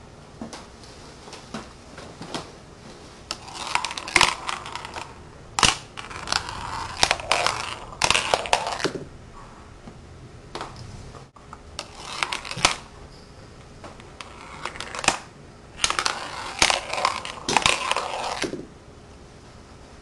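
Glass marbles rolling and clattering down a zigzag run of wooden block ramps, clicking as they drop from ramp to ramp. Two runs of several seconds each, the second starting about halfway through.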